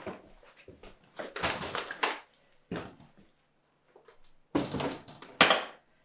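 Footsteps and the rustle and knock of clothing and objects being handled, in short irregular bursts; the sharpest comes about five and a half seconds in.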